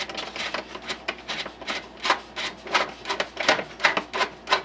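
Wire-mesh safety cage being bolted by hand inside a styrofoam cooler: a run of short scraping, rubbing strokes, about three a second.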